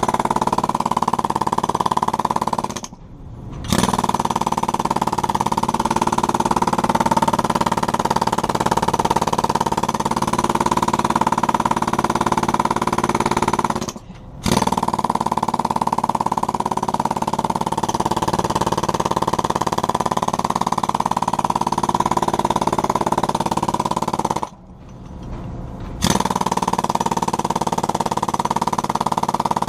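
A jackhammer hammering fiber-reinforced concrete. It runs continuously and stops briefly three times before starting up again.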